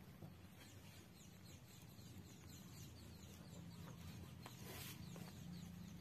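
Near silence: faint outdoor background with a low steady hum and many faint, short high chirps.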